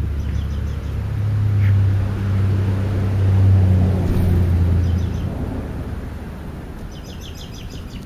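A passing vehicle's engine, a low steady hum that swells and then fades out about five seconds in. A few short bird chirps come at the start, and a quick run of chirps near the end.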